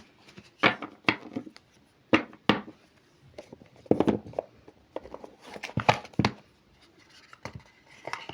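Oracle cards being handled and laid down on a table: a string of short slaps and taps at uneven intervals.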